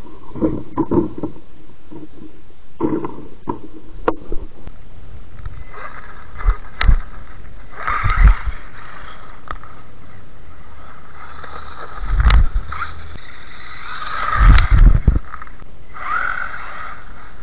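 WLtoys 12428 RC buggy running on stock electronics, its electric motor and gears whining up and down in short bursts of throttle over dirt, ice and snow. Several heavy low thumps break in along the way.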